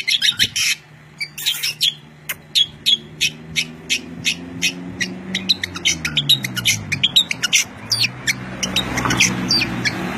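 A small songbird chirping rapidly in a long run of short, sharp, high notes, several a second. Under the chirps a low hum dips in pitch and rises again in the middle of the run.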